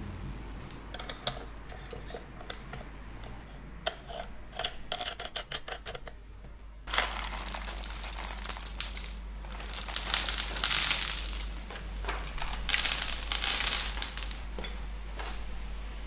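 A few light metal clicks, then a foil coffee bag crinkling loudly in surges as coffee beans are poured from it into a hand, the beans rattling as they fall.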